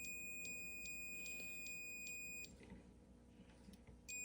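Continuity tester beeping with a steady high-pitched tone for about two and a half seconds, stopping, then beeping again shortly before the end. It sounds as the repaired dryer motor centrifugal switch is worked, its cleaned contacts now closing and showing continuity.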